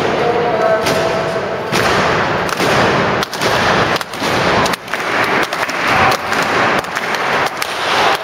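Crowd cheering with rhythmic clapping, a sharp hit landing about every three-quarters of a second, with a short shout near the start.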